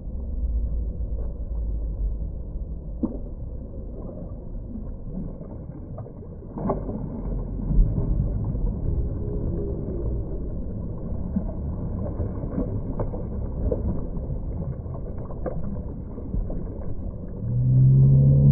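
Muffled, low sloshing and splashing of pool water as a child swims front crawl close to the microphone, with scattered small splashes. Music comes in near the end.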